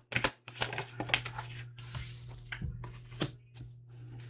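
Tarot cards being shuffled and handled: a series of sharp snaps and taps, with a short rustle about two seconds in.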